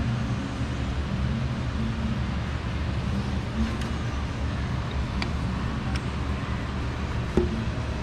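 A steady low hum in the background, with a few light clicks and one sharper knock about seven seconds in as a gloved hand works at the connecting rod and its new bearing.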